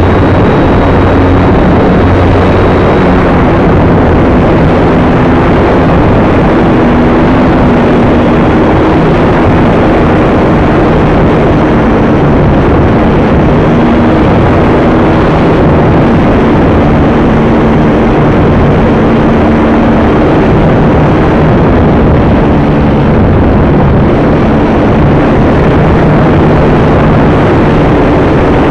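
RC Acromaster model plane's motor and propeller in flight, picked up by the onboard camera: a loud, steady rush of wind and propeller noise, with low motor tones that shift up and down in pitch.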